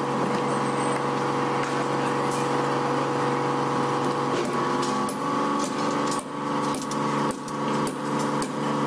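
Heavy-equipment diesel engine running steadily at a constant pitch, with several sharp knocks or clanks in the second half.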